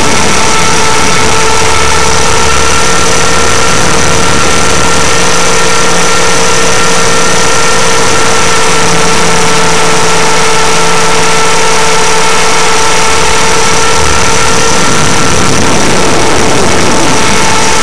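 Align T-Rex 500 electric RC helicopter in flight, heard through its own onboard camera: a loud, steady whine and buzz of the motor and rotors with several unchanging tones, at the same pitch throughout.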